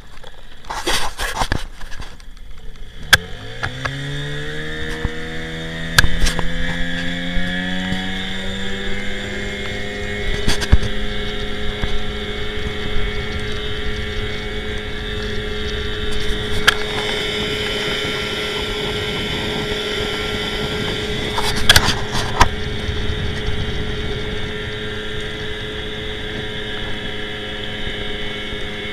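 Johnson Seahorse 15 hp outboard on a small inflatable boat opening up about three seconds in, its note rising over several seconds as the boat gathers speed, then running steady at speed over the rush of water. A few sharp knocks cut through at intervals.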